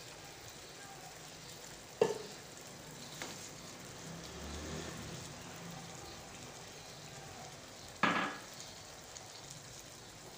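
Thinly sliced potatoes sizzling as they fry in oil in a pan, as tomato puree is poured in and stirred with a slotted spatula. Two sharp knocks stand out, about six seconds apart.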